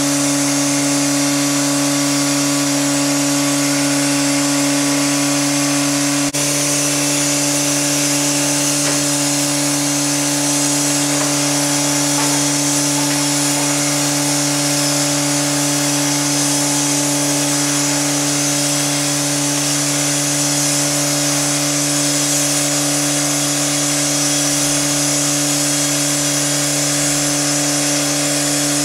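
Standing LMS Black 5 4-6-0 steam locomotive hissing steadily, with a continuous low drone underneath that holds throughout.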